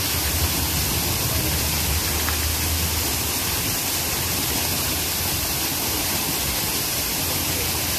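Steady rushing water of a waterfall, with a low rumble underneath for about the first three seconds.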